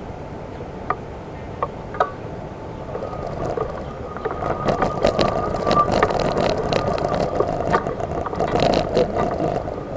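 Electric wheelchair driving over rough ground: a steady motor whine with rolling wheel noise and scattered clicks, louder from about three seconds in after a few separate clicks.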